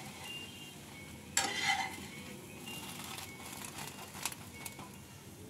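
French toast frying faintly in oil in a nonstick pan, with a slotted spatula scraping and tapping against the pan as the slices are turned and lifted; the loudest scrape comes about a second and a half in, followed by a few light clicks.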